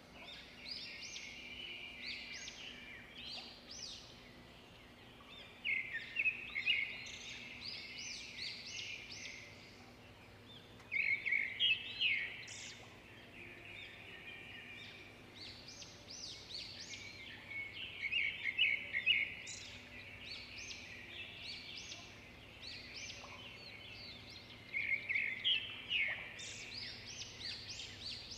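Songbirds chirping and singing: clusters of quick, high chirps and short trills come every few seconds over a faint steady background.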